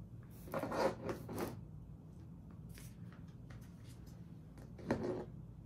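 Small plastic action-figure parts being handled: rustling and scattered light clicks, with a short murmur of a voice near the end.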